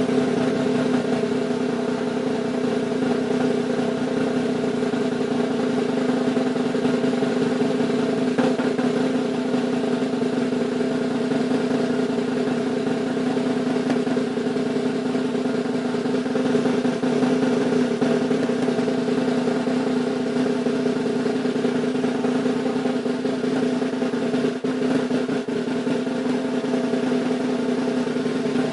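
Snare drum roll, fast and sustained at an even level.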